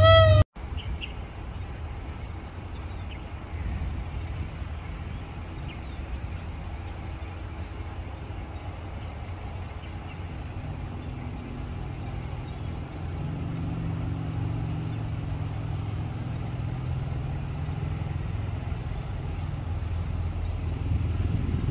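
The tail of a music intro cuts off sharply about half a second in, followed by a steady low rumble from a diesel locomotive's engine that slowly grows louder toward the end, as a train approaching.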